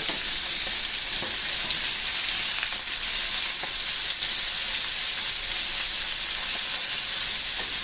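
Shrimp and sliced garlic frying in hot achiote oil in a pan: a steady, even sizzle, with a few faint ticks as they are turned.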